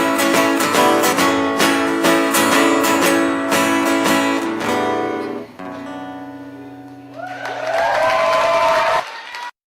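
Closing bars of a song on strummed acoustic guitar. The strumming stops about five and a half seconds in, leaving softer held notes. A wavering melody line then comes in and plays until the music cuts off suddenly just before the end.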